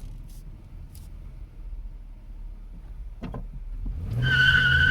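Inside the cabin of a Chevrolet Impala: low engine and road noise, then about four seconds in the engine revs up under a hard launch and the tires break loose with a steady high squeal.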